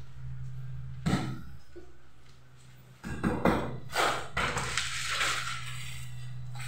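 A few knocks and clatters, one about a second in and a cluster from about three to five seconds, over a steady low hum.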